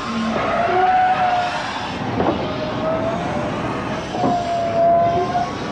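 The LNER A3 Pacific steam locomotive Flying Scotsman moving, its wheels and motion giving a steady running noise with a high squeal that comes and goes every second or two and a couple of brief knocks.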